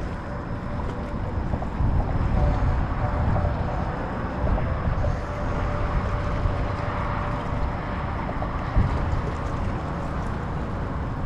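Wind buffeting the microphone in a steady low rumble, with a faint steady hum underneath.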